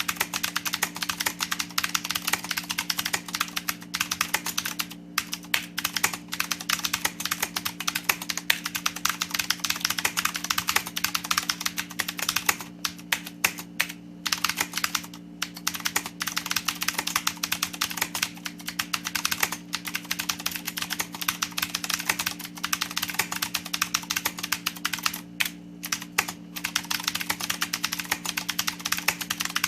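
Fast, continuous typing on a mechanical keyboard with clicky Cherry MX Blue switches and dye-sublimated PPS keycaps: a rapid stream of sharp keystroke clicks, broken by a few short pauses.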